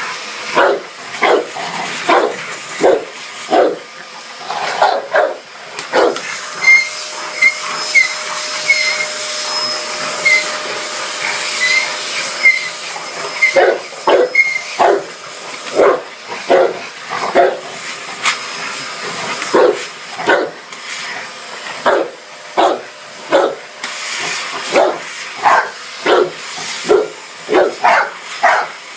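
A Dogue de Bordeaux barking again and again, about once a second, at a running vacuum cleaner whose steady whirr carries on underneath. The barking stops for several seconds in the middle while the vacuum keeps running, then starts up again.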